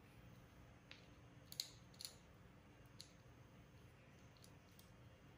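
Faint, scattered clicks of a small metal screw and T-nut being handled and fitted together by hand, about six light ticks over quiet room tone.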